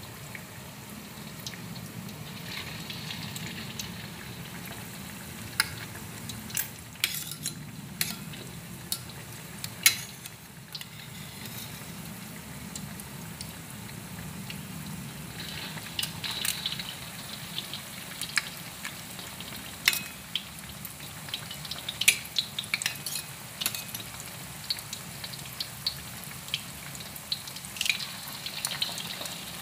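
Egg-battered potato patties deep-frying in oil in a wok: a steady sizzle, with many sharp clicks of metal tongs against the wok and the egg bowl, thickest about a quarter of the way in and through the second half.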